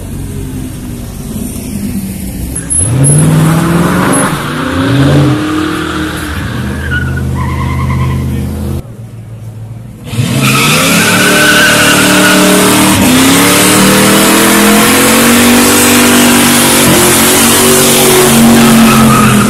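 Car engines revving hard with rear tyres spinning and squealing in burnouts. The first part has the engine note sweeping up and down; after a brief drop about nine seconds in, a black-and-gold Pontiac Firebird holds a long, steady burnout, its engine high in the revs under a continuous tyre screech.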